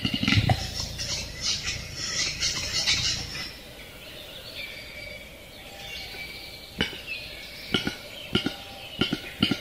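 Male western capercaillie's courtship display song. It opens with a pop, then about three seconds of rapid scraping, wheezy notes (the 'whetting' phase). After a quieter stretch, a new series of dry knocking clicks starts about seven seconds in and speeds up toward the end.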